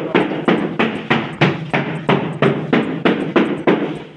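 Rapid, even hammering, about three to four blows a second, stopping just before the end.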